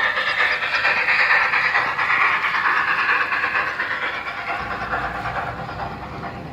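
Toy train running along its track with a steady noisy rush, loudest over the first few seconds and fading toward the end.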